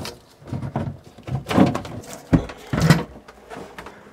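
Knocks and clatter from handling hoses and fittings inside a boat's cramped head compartment, with one sharp knock about two and a half seconds in and a couple of short grunts of effort.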